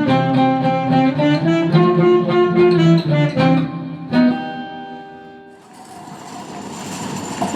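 Guitar playing a melody in separate plucked notes, ending on a last plucked note or chord about four seconds in that rings out. After that a steady background noise takes over.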